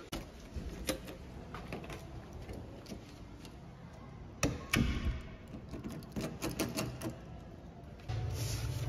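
A door being opened and handled: latch clicks and knocks, the sharpest about four and a half seconds in, followed by a run of knocks like footsteps. A steady low hum comes in near the end.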